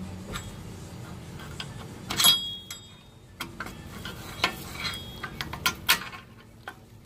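Irregular metal clicks of a screwdriver working the star-wheel adjuster of a Chevrolet Equinox's rear parking-brake shoes, turning it to back the shoes off. One louder metallic clink with a brief ring comes about two seconds in, and a run of sharper clicks comes later.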